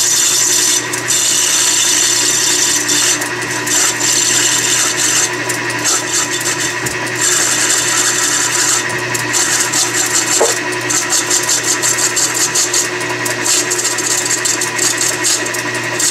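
Logan metal lathe running steadily while a radius form tool is plunged into half-inch brass rod, forming a quarter-inch radius on its end: a constant machine hum under a hissing, scraping cutting noise that rises and falls.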